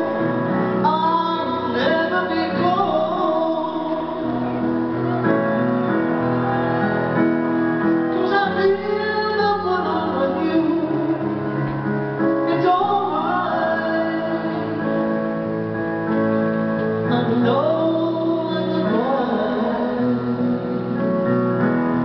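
Live performance of a slow ballad: a woman singing long, wavering notes over piano accompaniment.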